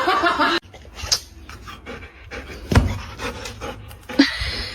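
A dog panting, with a couple of sharp thumps about midway and near the end.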